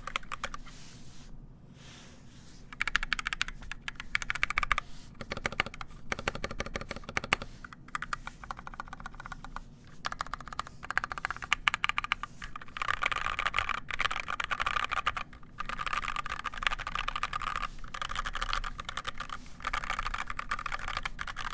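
NK65 Entry mechanical keyboard with EV-01 switches and PBT keycaps being typed on fast, rapid keystrokes in runs broken by several short pauses.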